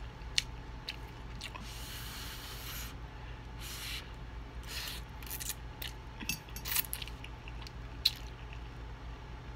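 Instant ramen noodles being slurped off a fork in a few short hissing draws, with wet chewing and small lip-smacking clicks in between.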